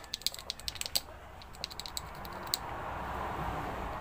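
Small plastic clicks and taps of a pressure washer's switch and its housing being handled and fitted by hand, a quick cluster in the first second and more around two seconds in, followed by a soft steady rushing noise.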